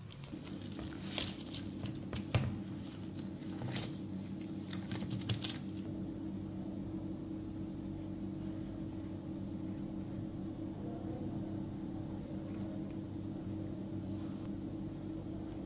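A few soft knocks and clicks of dough and a baking tray being handled in the first six seconds, over a steady low hum.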